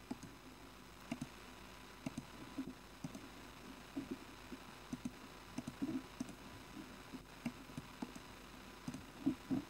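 Irregular soft clicks of a computer mouse, a dozen or so, with the loudest pair near the end.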